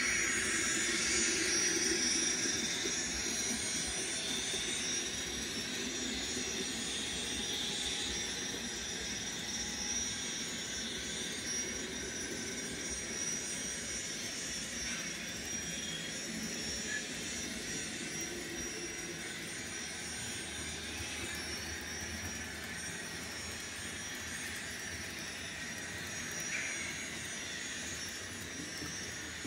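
Onboard sound of an N scale model of the Union Pacific GTEL 26 gas-turbine locomotive, playing a steady jet-like turbine whine and rush. It is a little louder in the first few seconds, then holds even.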